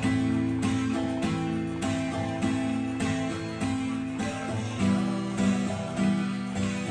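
Acoustic guitar strummed in a steady rhythm, the chord changing every second or two.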